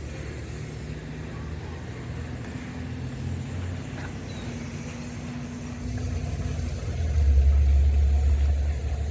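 A motor vehicle's engine rumbling steadily, growing much louder about seven seconds in as it comes close.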